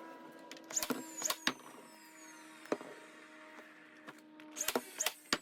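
A pneumatic brad nailer firing into plywood frame pieces: about nine sharp clicks and knocks in uneven groups, some in quick pairs, over a faint steady hum.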